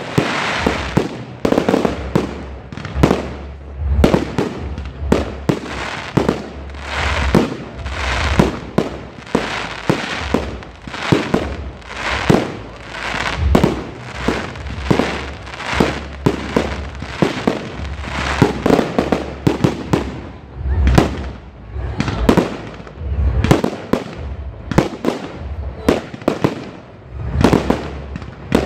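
Fireworks display: aerial shells bursting in rapid succession, one or two sharp bangs a second, with crackling between them.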